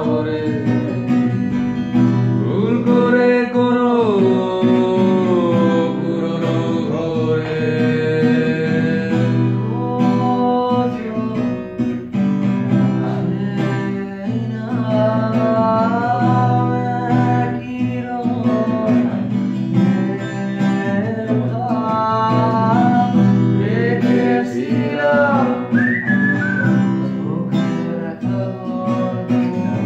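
An acoustic guitar is strummed steadily while a man sings a Bengali song over it in long, gliding held notes.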